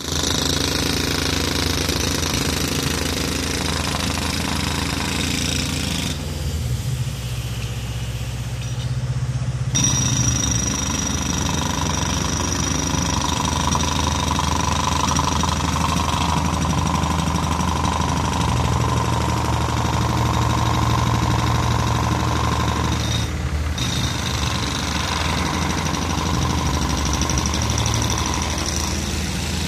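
Diesel engine of a small road-repair tipper truck running close by: a steady low drone with a thin high whine above it.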